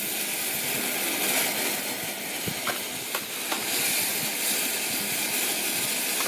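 Lit ground firework burning with a steady hiss as it sprays, with a few sharp crackles near the middle.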